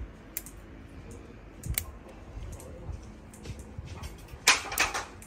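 Bonsai pruning scissors snipping thin twigs: a few sharp clicks now and then, with a louder cluster of snips about four and a half seconds in.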